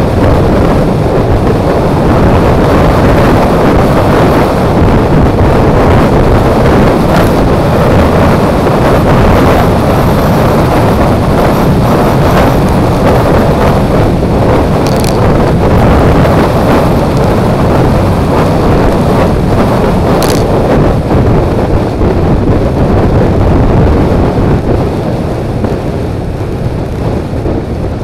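Wind buffeting the microphone of a mirror-mounted action camera on a Suzuki Burgman 400 scooter riding at road speed, mixed with the scooter's running and road noise. It eases a little near the end.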